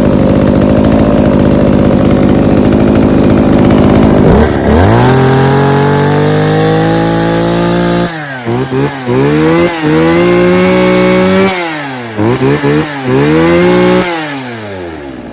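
Two-stroke gasoline chainsaw running loud and rough for a few seconds, then revved up to a held high speed. It is blipped up and down several times, held high twice more and drops back to idle near the end.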